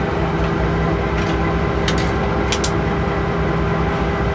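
Diesel-electric locomotive engine running steadily, heard from inside the cab, with a steady hum and a few short sharp clicks about one and two seconds in.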